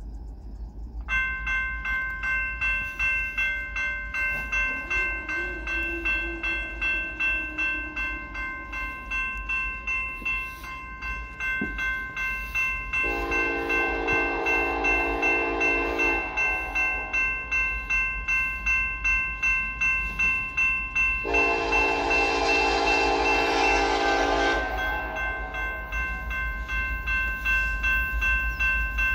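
Railroad crossing signal bell starts ringing about a second in and keeps pulsing steadily: the crossing has activated for an approaching train. Over it, the horn of BNSF 9221, an EMD lead locomotive, sounds two long blasts, with a third starting right at the end, the standard warning for a grade crossing.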